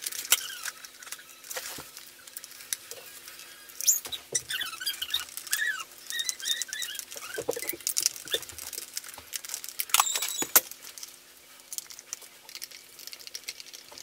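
Sped-up handling noise from a Dyson cordless stick vacuum being taken apart: a quick run of plastic clicks, rattles and screwdriver taps as its battery screws are undone. High chirpy squeaks come and go through the middle.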